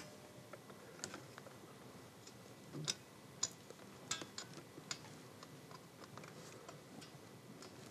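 Faint, scattered small metallic clicks and ticks as a hooked spring tool works a small coil spring onto its bracket in the tone arm of a 1963 Dansette Bermuda record player.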